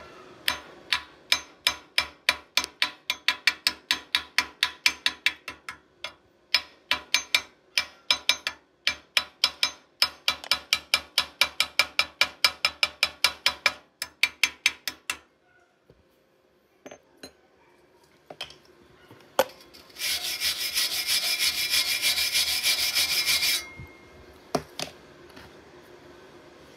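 Fast, even metal-on-metal tapping, about four or five strikes a second, as slag is chipped off a fresh arc weld bead on thin galvanized steel tube. It stops about halfway, a few single taps follow, and after a pause the bead is scrubbed steadily for about three and a half seconds, as with a wire brush cleaning off the loosened slag.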